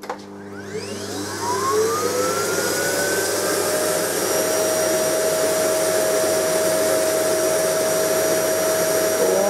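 Vacuum cleaner switched on, its motor whine rising in pitch over the first couple of seconds as it spins up, then running steadily with a rushing airflow.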